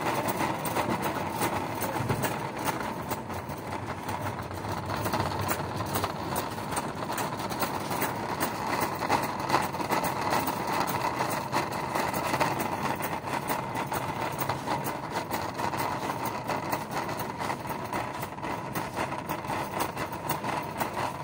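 Metal shopping cart rolling over a concrete floor, its wheels and wire basket rattling continuously with fast, fine clicks, over a steady hum of the store's ventilation.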